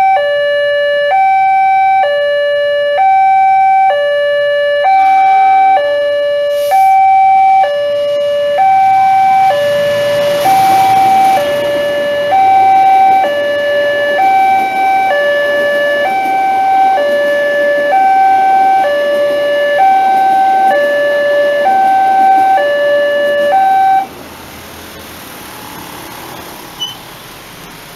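Railway level-crossing electronic alarm sounding two alternating tones, high and low, about one pair a second. Through the middle a passing parcel train adds a broad rushing noise. The alarm cuts off abruptly near the end, leaving quieter road traffic as the barrier reopens.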